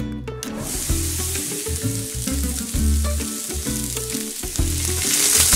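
Curry paste frying in hot oil in a pan, stirred with a wooden spatula: a sizzle that starts about half a second in and grows louder near the end. Background music with a steady repeating bass line runs underneath.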